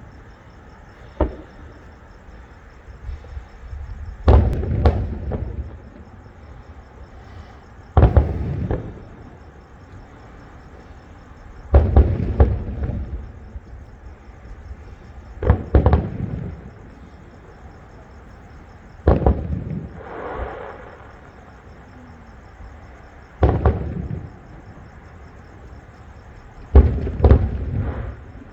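Aerial fireworks bursting: a small bang about a second in, then seven loud booms about every three to four seconds, each trailing off in a rolling echo.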